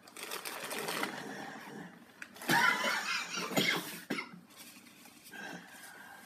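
A person sobbing in breathy gasps, loudest between about two and a half and four seconds in.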